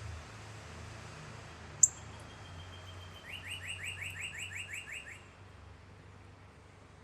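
A songbird singing: a thin steady whistle, then a quick run of about a dozen downslurred notes, some six a second, lasting about two seconds. A single sharp click comes just before the song and is the loudest sound.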